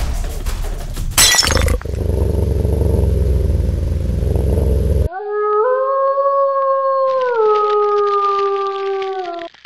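A sharp crash about a second in and a low rumble, then from about five seconds in a wolf howl sound effect: one long howl that steps up slightly, then drops in pitch near its end.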